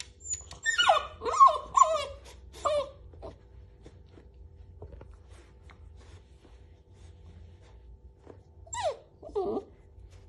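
Puppy whining in protest: a quick run of about four high whines that fall in pitch, then two more near the end, the sign of a puppy annoyed that its blanket is being pulled away.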